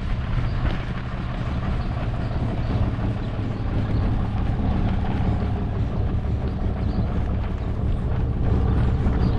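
Steady low hum of a vehicle engine running, with wind rumbling on the microphone.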